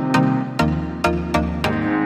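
Background music with a steady beat and held chords that change about halfway through.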